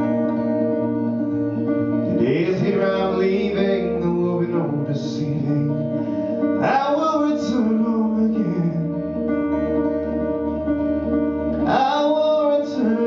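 Music: acoustic guitar under long held chords, with a male voice singing three drawn-out phrases without words.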